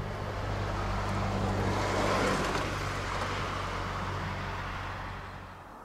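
A vehicle passing by: a broad rushing noise that swells to a peak about two seconds in and slowly fades, over a steady low mechanical hum. Both cut off abruptly at the end.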